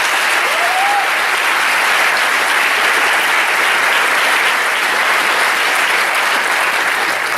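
Large audience applauding steadily, with one short rising cheer from the crowd near the start.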